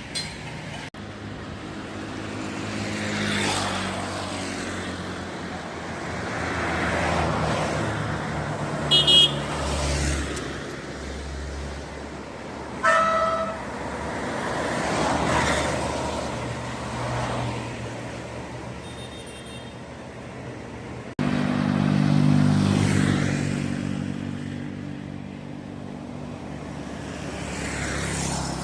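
Buses passing close one after another, engines running and tyres hissing as each one swells and fades. Two short, loud horn toots come about nine and thirteen seconds in, with a fainter one near twenty seconds: the drivers' horn greeting to bus spotters by the road.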